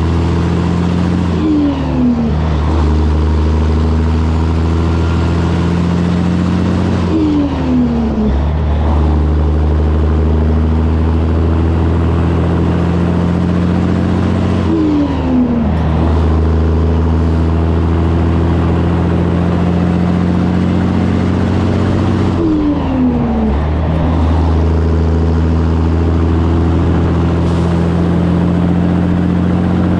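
Diesel engine of a 1984 Peterbilt 362 cabover semi running steadily under way, with a short drop in pitch about every seven seconds.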